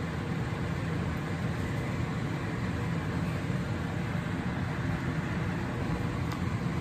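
Steady, even rushing noise with a low rumble, the constant background of a kitchen with a pot on a lit gas range.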